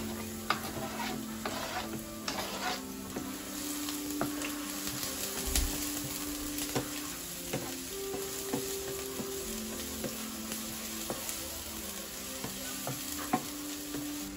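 Chopped onion sizzling as it fries in a non-stick frying pan, with a wooden spoon stirring it and clicking against the pan at irregular moments. At the start the onion is scraped off a cutting board into the pan.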